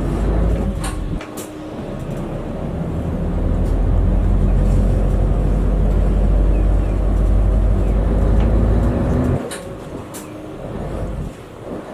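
City bus engine pulling away from a stop, heard from inside the cabin. The engine note dips briefly about a second in, climbs and holds through the middle, then drops off sharply about nine seconds in.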